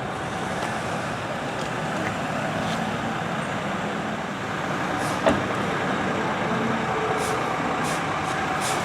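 Steady road-traffic noise from motor vehicles, with one sharp knock about five seconds in.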